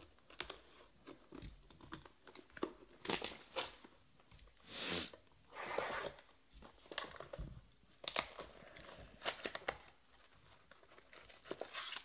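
Plastic shrink wrap on a cardboard trading-card box being slit with a box cutter and torn off, crinkling, followed by the box's cardboard being opened and handled, in short irregular rustles and scrapes.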